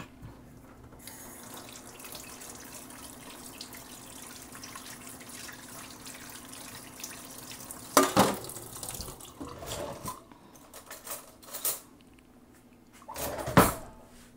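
Kitchen tap running steadily for several seconds, then a few loud clanks and knocks of dishes or utensils.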